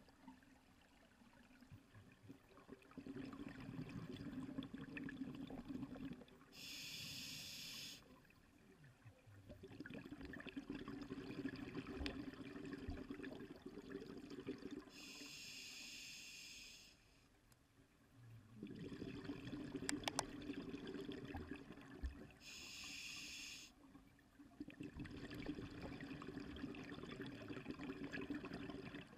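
Scuba diver breathing through a regulator in a steady cycle of about one breath every eight seconds: a short hiss as air is drawn through the demand valve, then a longer low bubbling rumble as the exhaled air bubbles out. Four breaths.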